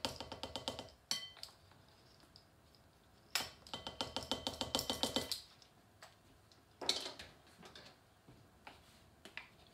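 A spoon clinking rapidly against a glass mixing bowl in two runs of about two seconds each, the bowl ringing with each stroke, as cinnamon is measured into the dry ingredients. A single sharper knock comes about seven seconds in.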